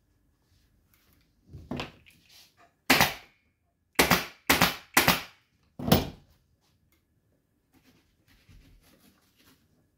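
Pneumatic upholstery staple gun firing staples into a chair's wooden frame. It gives five sharp shots between about three and six seconds in, four of them in quick succession, after a softer handling knock.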